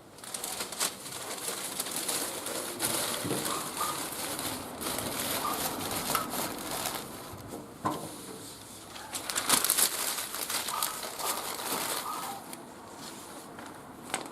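Dense crackling and crinkling with many sharp snaps, from a wood fire being laid and lit in a barbecue grill.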